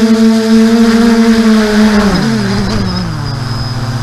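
Quadcopter's electric motors and propellers, heard from its onboard camera, giving a steady whining hum that drops in pitch about halfway through as the craft throttles down and settles onto the grass to land.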